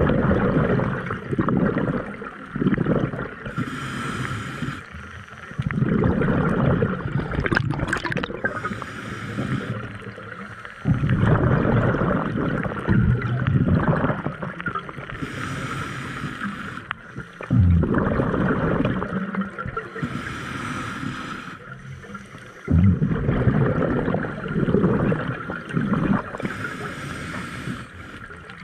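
Scuba diver breathing through a regulator underwater: a short hiss on each inhale, then a loud gurgling rush of exhaled bubbles that starts suddenly, one breath about every five to six seconds.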